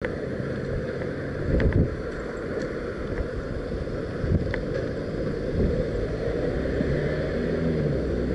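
Steady low wind rumble and road noise on a moving camera's microphone, with a few light clicks and knocks about two seconds in and again about four and a half seconds in.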